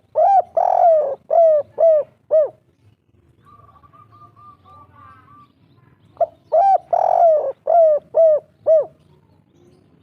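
Spotted dove cooing in the 'kuk 3' song type: two phrases about six seconds apart, each two short notes, a long drawn coo, then three short coos. Between the phrases, a faint fast series of high notes from another bird.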